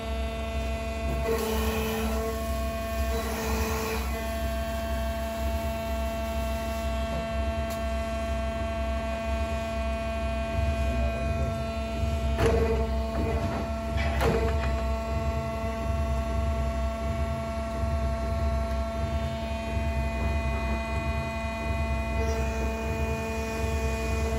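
Addison DB40F CNC pipe bending machine running with a steady hum. A higher whir cuts in briefly several times as the bending axes move, with two sharp knocks near the middle.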